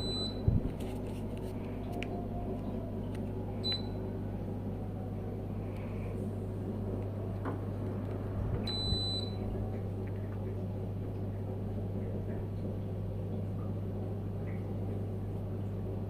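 Sharp mini-split air conditioner running with a steady low hum. Short high beeps sound right at the start, about 4 s in and about 9 s in, and a single knock comes just after the start.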